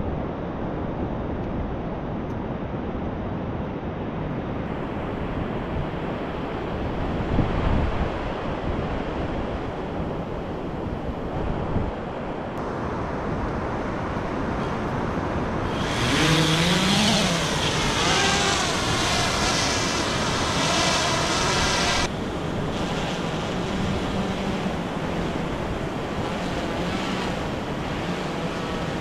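Surf washing on the beach with wind on the microphone, then a quadcopter fishing drone's motors spin up with a rising whine and its propellers run loudly for about six seconds before the sound cuts off suddenly.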